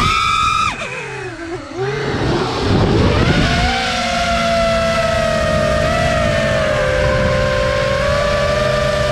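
FPV racing quadcopter's brushless motors whining. The pitch is high at first, drops and falls off briefly as the throttle is chopped, then spools back up about three and a half seconds in to a steady, slightly wavering whine of several tones.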